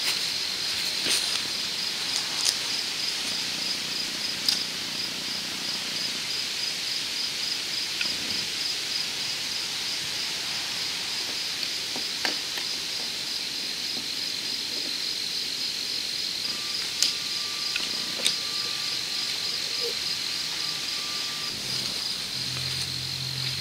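Crickets chirping steadily in a high, evenly pulsed trill, with occasional sharp clicks and knocks from work on the PVC greenhouse frame.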